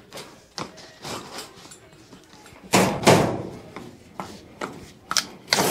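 A white ribbed plastic tube being pulled off a retractable sunshade roller, rubbing and scraping along the metal spring assembly, with two louder knocks about three seconds in and a few sharp clicks near the end.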